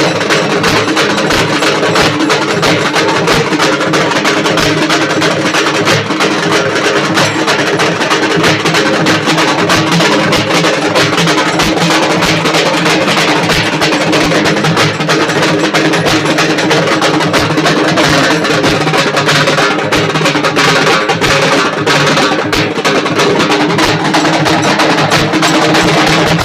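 A group of halgi frame drums beaten with sticks in a fast, continuous, dense rhythm of sharp strokes, loud throughout.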